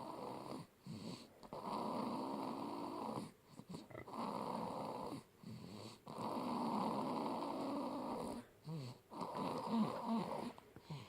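Baby snoring in her sleep: about five long snores, each a second or two, with short breaths in between, turning shorter and choppier near the end.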